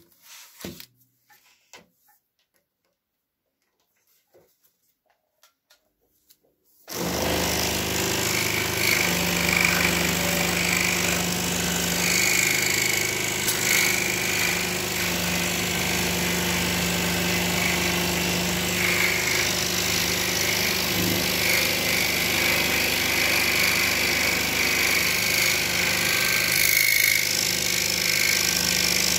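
Pégas 21-inch precision scroll saw switched on about seven seconds in, then running steadily as it cuts through a stack of two 3 mm birch plywood layers. Before it starts, a few faint clicks of handling.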